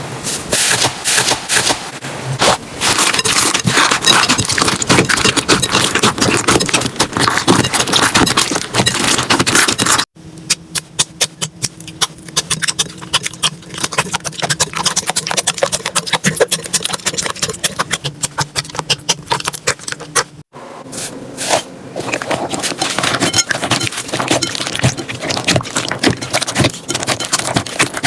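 Slime being squeezed, poked and stretched by hand: a dense run of sticky crackles, clicks and pops. It cuts abruptly to a different, quieter batch of slime about ten seconds in, and to another, louder again, about twenty seconds in.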